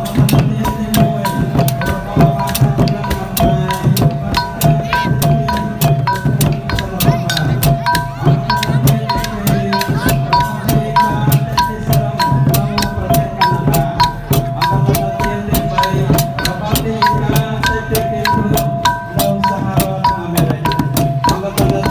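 Khmer chhay-yam percussion: long goblet-shaped chhay-yam drums beaten by hand, with small hand cymbals and wooden clappers keeping a fast, steady beat of about four or five strikes a second and the cymbals ringing over it.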